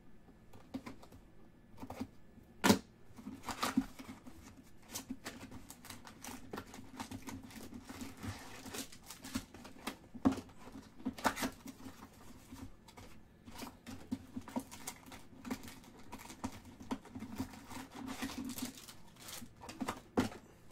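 Trading card packs and their cardboard box being handled and opened: wrapper crinkling and tearing with irregular rustles and clicks, the sharpest crack a few seconds in.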